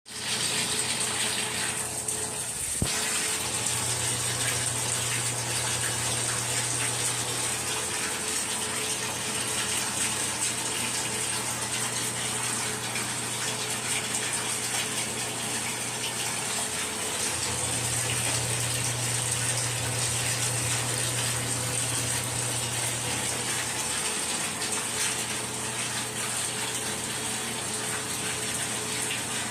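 Water running steadily, with a low hum underneath that grows louder twice and a single click about three seconds in.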